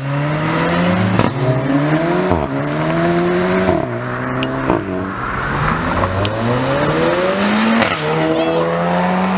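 Car engines accelerating hard through the gears: the revs rise again and again, each climb broken by a quick upshift, with sharp cracks at several of the shifts.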